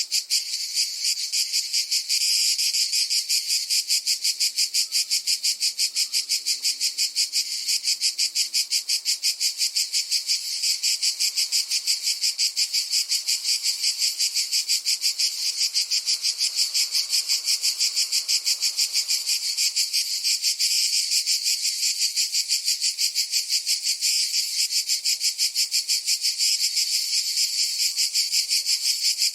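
Cicadas buzzing in a steady, high, rapidly pulsing drone that does not let up.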